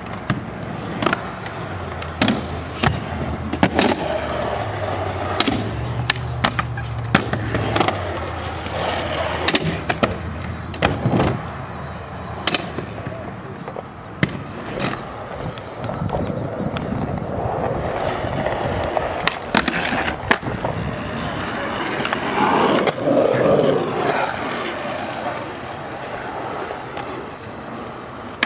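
Skateboard wheels rolling on concrete as a skater rides ramps and ledges, with repeated sharp clacks of the board popping and landing scattered throughout.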